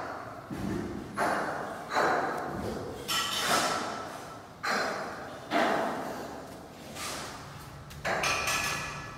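Swiftlet calls repeated about once a second, each call starting sharply and fading into the echo of the bare concrete swiftlet house.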